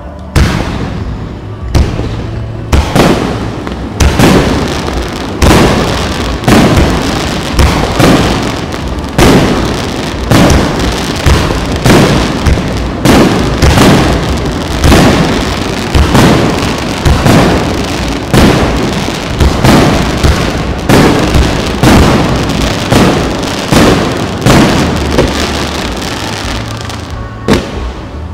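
Fireworks display: a rapid barrage of aerial shells bursting, with sharp booms coming about once a second and crackling between them. The booms are sparse for the first few seconds, then come thick and fast until they thin out near the end.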